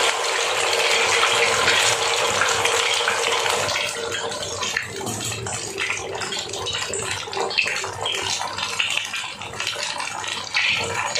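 Malpua batter frying in hot desi ghee: a dense sizzling hiss as the batter goes in, easing after about four seconds into quieter, steady crackling and popping.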